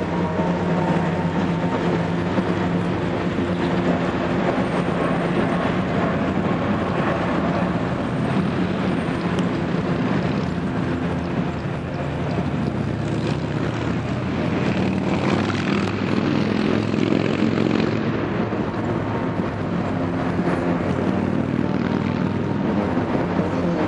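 A steady mechanical drone with a constant hum that holds the same pitch throughout, like an engine running nearby.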